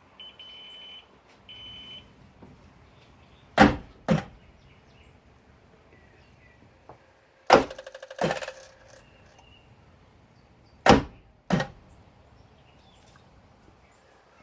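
Two short high electronic beeps from a Kawasaki STX-15F jet ski's ignition, then three start attempts, each a pair of loud clunks about half a second apart. One attempt carries a brief stutter. The engine never catches or runs: the jet ski won't start.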